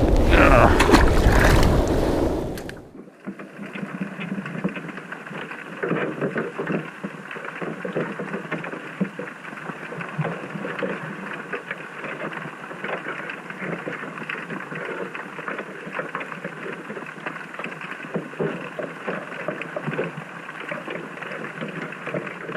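Wind buffeting the microphone on an open boat for about the first three seconds, then, from an underwater camera beside a crab trap on the seabed, a thin, muffled wash of water noise with many small irregular clicks and crackles.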